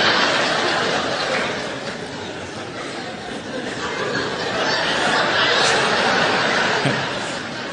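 A large audience laughing. The laughter swells again about halfway through and dies down near the end.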